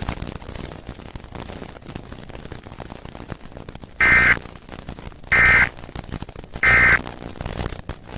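Emergency Alert System end-of-message code: three short, identical buzzing data bursts about 1.3 seconds apart, sent to close the test. They follow a few seconds of noisy hiss on the broadcast audio.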